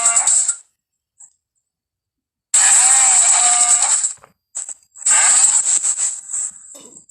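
Triceratops creature sound effects: rough, noisy calls with a low tone that bends. One call ends just after the start, then two longer ones of about a second and a half each follow, with silent gaps between.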